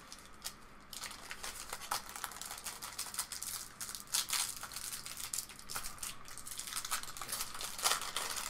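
Crinkling of a small plastic hardware bag and little clicks of metal screws being picked through by hand, starting about a second in and running on.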